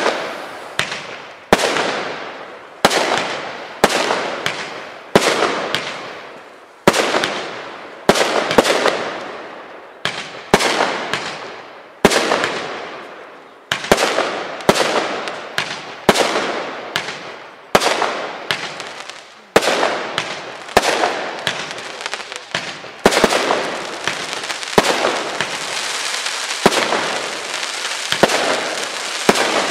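Punisher 25-shot consumer firework cake firing in quick succession, about one shot a second. Each shot is a sharp bang followed by a fading crackle, and in the last several seconds the crackle runs on without a break.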